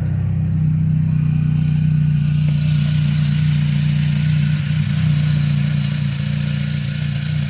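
Steady low mechanical hum of a running motor, with a hiss that builds from about a second in.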